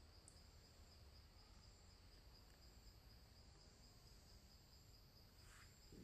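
Near silence with faint insects chirring: a steady, pulsing high trill of crickets.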